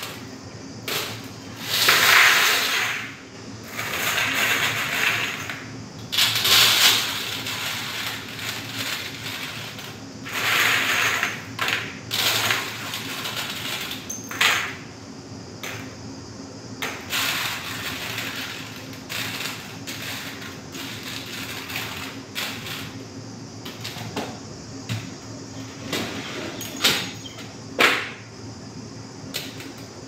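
Rustling and crinkling in repeated bursts of a second or two as a foil-lined tray of dry strands is handled, with a steady low hum underneath and a few sharp clicks near the end.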